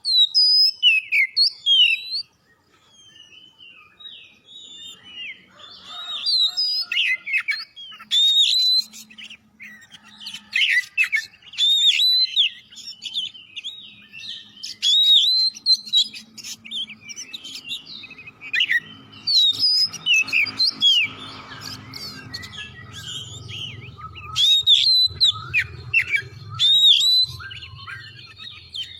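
Oriental magpie-robin (kacer) singing vigorously: a rapid, varied string of sweeping whistles and chirps delivered in bursts, with a brief pause a few seconds in.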